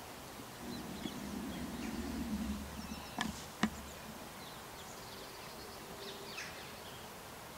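Low rumble of the handheld camera being moved for about three seconds, ending in two sharp snaps about half a second apart, the second the loudest. Faint bird chirps sound behind.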